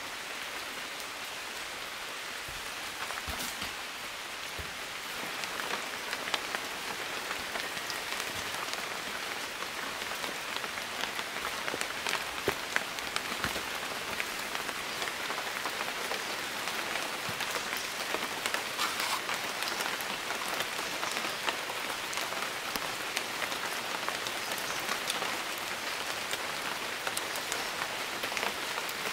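Rain falling on forest foliage, a steady hiss with many small drop ticks, growing louder about five seconds in.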